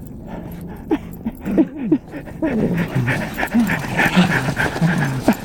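Dogs at play, giving short whining sounds that fall in pitch, one after another; from about halfway these come faster, mixed with hard breathing.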